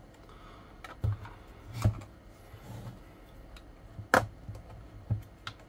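Handling clicks and knocks from a small pointed tool prying at an old multimeter's grey case and the case being slid apart: about five sharp knocks, the loudest about four seconds in.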